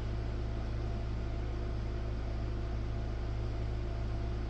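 Steady low background hum with a light hiss, unchanging throughout; no distinct handling or tool sounds stand out.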